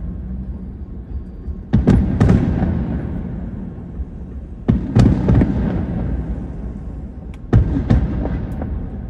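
Aerial fireworks shells bursting: sharp bangs about two, five and seven and a half seconds in, the first a quick pair, each trailing off into a low rumble.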